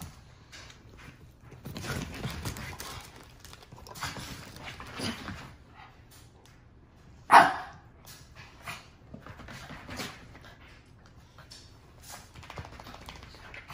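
Small dog barking and yipping in short bouts, the playful barking of a puppy challenging another dog for a toy; one sharp bark about seven seconds in is much louder than the rest.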